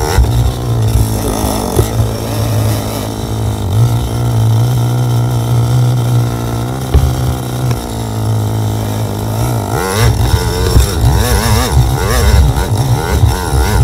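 KTM 450 dirt bike's four-stroke single-cylinder engine, first running at a steady low speed, then from about ten seconds in revving up and down again and again.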